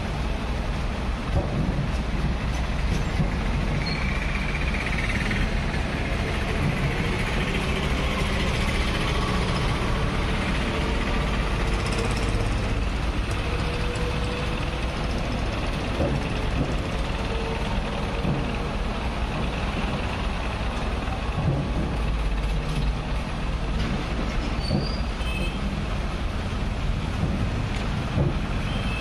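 Diesel engine of a backhoe loader running steadily as it works its arm, mixed with road traffic and passing motorbikes.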